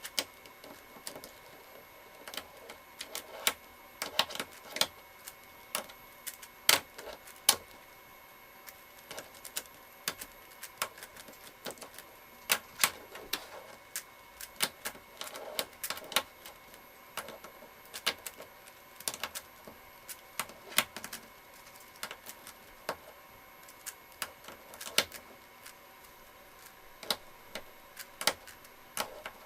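ShengShou 5x5 speedcube being turned one-handed: irregular plastic clicks and clacks of its layers, a few a second and uneven in strength, over a faint steady whine.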